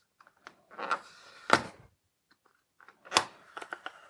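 Rubberized pad being peeled off the underside of an Ember mug charging coaster: a rasping peel about a second in that ends in a sharp click, then another sharp click and a few lighter clicks near the end as the coaster is handled.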